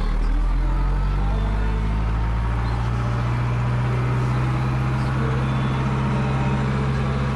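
Case IHC 844 XL tractor's four-cylinder diesel engine running steadily, heard from inside the cab.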